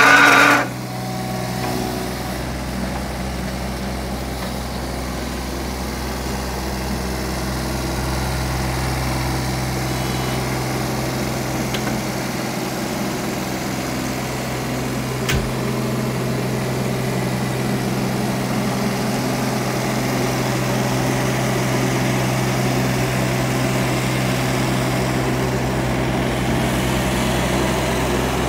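JCB 16C-1 mini excavator's small diesel engine running steadily at a constant speed. A brief loud beep sounds right at the start, and there is a single sharp click about fifteen seconds in.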